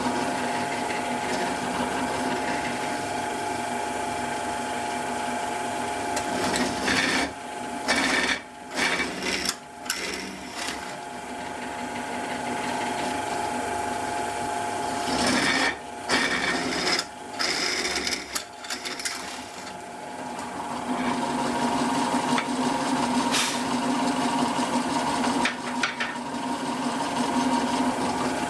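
Electric drill running at a steady pitch as it bores holes. Several short stops and knocks come in the middle, and it then runs steadily again near the end.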